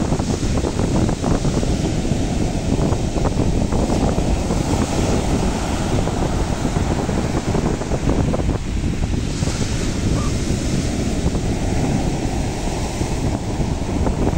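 Sea surf washing onto the shore, swelling in hissy surges every few seconds, under heavy wind buffeting the microphone.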